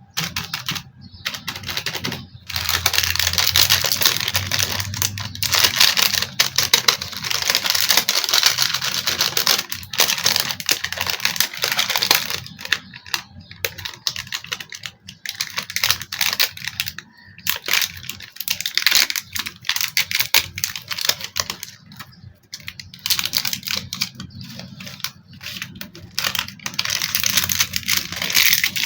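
Toy packaging being handled and opened: a rapid run of clicks, crackles and rustling that comes in spells with short pauses.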